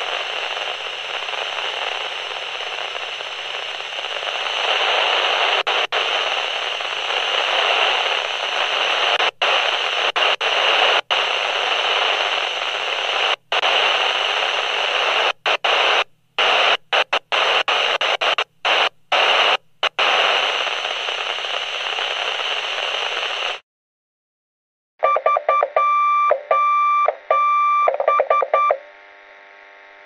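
Walkie-talkie static hissing steadily, then cutting in and out abruptly many times. After a brief silence, a loud burst of choppy electronic radio tones lasts a few seconds, followed by a faint low hum.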